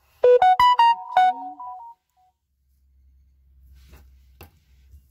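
A short, loud electronic melody of about eight quick notes, stepping up and down and lasting about a second and a half, like a phone's alert tone. Faint rustling of paper and two light clicks follow as a drafting ruler is moved over the pattern paper.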